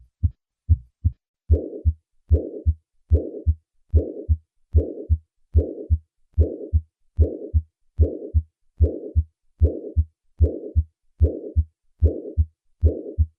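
Heart sounds beating steadily at about 75 a minute, first as plain lub-dub pairs. About a second and a half in, a systolic murmur joins each beat: the decrescendo murmur of acute mitral regurgitation, starting with the first heart sound and fading toward the second as left atrial and ventricular pressures equalize.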